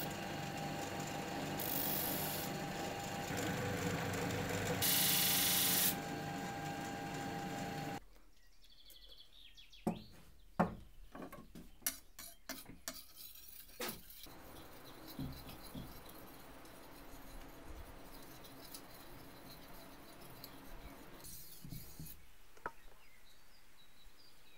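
Grinding wheel running against the steel blade of a handmade knife, throwing sparks, with a harsher hiss twice where the steel is pressed harder into the wheel. It stops suddenly about eight seconds in and gives way to a scatter of light clicks and knocks.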